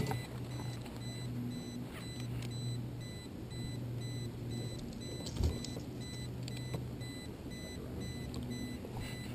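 Steady low electric hum with a faint, high, electronic beep that switches on and off every half second or so.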